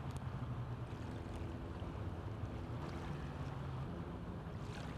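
A steady low motor drone that swells and fades a little, with a few faint ticks over it.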